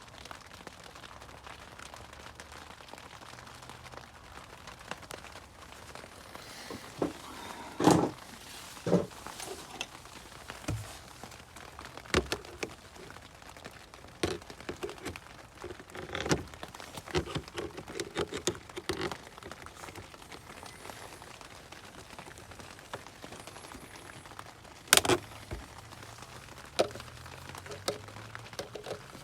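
Tools and parts being handled during engine work: scattered clicks, knocks and rattles at irregular intervals, the loudest knocks about eight seconds in and again near the end.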